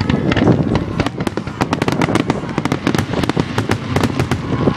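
Aerial fireworks in a finale barrage: many shells launching and bursting in quick succession, a dense, continuous run of loud sharp bangs and crackles.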